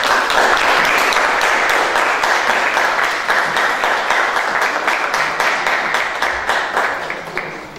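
Audience applauding, tapering off and stopping near the end.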